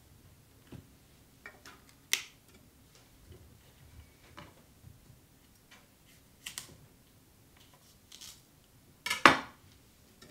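Cauliflower being broken into florets and cut with a chef's knife on a wooden cutting board: scattered soft snaps and knife taps, with one louder knock near the end.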